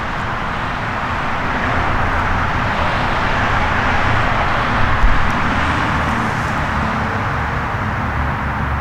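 Steady rushing outdoor noise with a fluttering low rumble beneath it, and a brief low thump about five seconds in.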